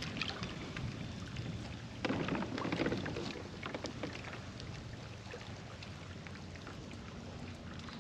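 Water lapping and splashing against a kayak hull as it moves slowly along, with scattered light knocks and a louder patch of splashing about two seconds in.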